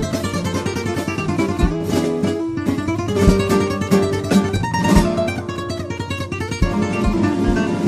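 Background music: flamenco-style acoustic guitar, with quick plucked and strummed notes.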